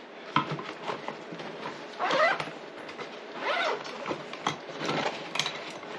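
Canvas tool roll being handled and folded: fabric rustling and rasping, with small clicks and clinks of metal hand tools such as nut drivers sliding into its pockets.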